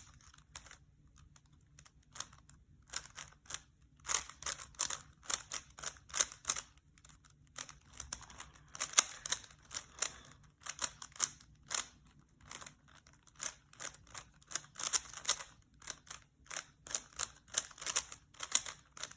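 Rubik's Cube layers being turned by hand during a solve: irregular runs of quick plastic clicks and clacks as the faces snap round, broken by short pauses.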